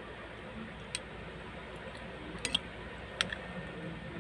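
Metal spoon tapping against a ceramic bowl while eating: four small sharp clicks, one about a second in, a close pair about two and a half seconds in and one just after three seconds, over a faint steady background noise.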